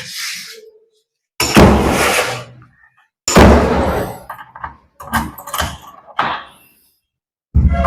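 A door being pushed shut and handled, with a series of loud thuds and knocks about a second or two apart.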